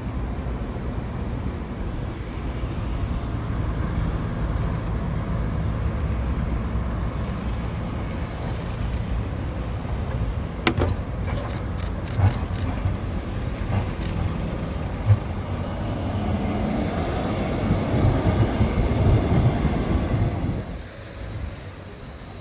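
Vintage DÜWAG articulated tramcar running on the rails toward the listener, a steady low rumble with a few sharp clicks about halfway. It gets louder as it passes close near the end, then the sound drops off suddenly.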